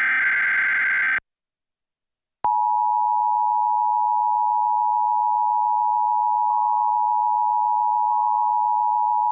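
The last Emergency Alert System SAME header data burst, a harsh burst of digital data tones, ends about a second in. After a short silence, the EAS two-tone attention signal (853 and 960 Hz sounded together) begins about two and a half seconds in and holds as one steady, unbroken tone.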